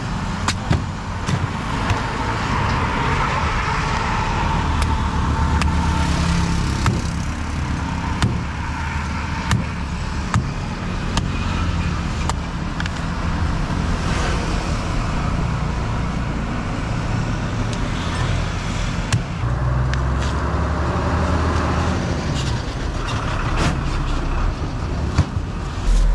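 Steady road traffic running close by, with sharp irregular knocks of a heavy knife chopping into palmyra palm fruits.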